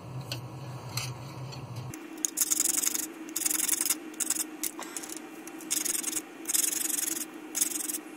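Small styrene plastic pieces being sanded by hand on a sanding block: a series of short rasping strokes that begin about two seconds in, each lasting about half a second, with pauses between them. The pieces are being evened up to a roughly level height.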